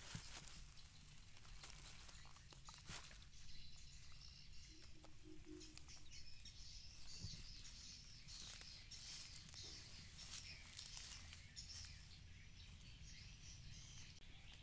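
Faint outdoor ambience: a low steady rumble with light bird chirping through the middle and a few small clicks or rustles.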